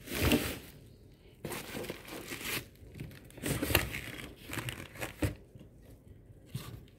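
Bubble wrap and plastic packaging crinkling, with the cardboard box rustling, in irregular bursts as hands shift a boxed electric motor and its cables.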